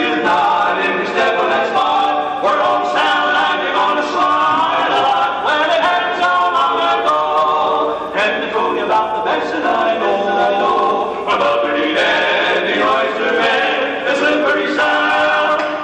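Male barbershop quartet singing a cappella in four-part close harmony, holding sustained chords that shift every second or two.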